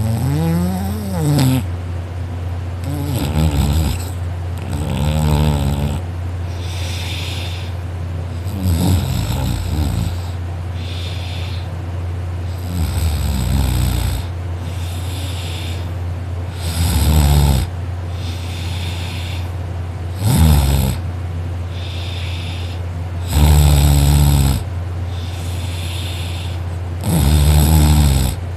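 A person snoring loudly in deep sleep, about nine snores spaced every three to four seconds, each a wavering pitched rasp, over a steady low hum.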